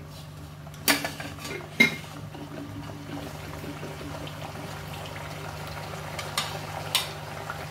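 Mutton pieces in oil and their cooking water starting to bubble and sizzle in a non-stick wok on a freshly lit gas flame, a steady soft simmer. Two sharp knocks against the pan about one and two seconds in, and a few lighter ticks near the end.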